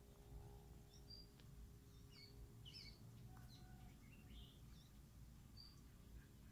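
Faint songbird chirps: short high notes scattered through, thickest about two to three seconds in, over a low, steady background rumble.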